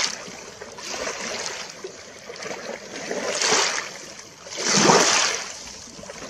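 Small lake waves lapping and splashing against rocks right at the microphone, in irregular washes every second or two, the loudest about five seconds in.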